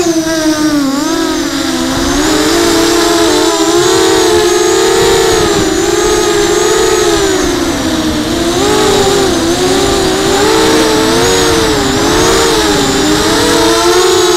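Quadcopter's brushless motors and propellers whining as heard from the onboard camera. The pitch drops right at the start, then wavers up and down as several motor tones weave apart and back together with the throttle and steering changes, and climbs back near the end.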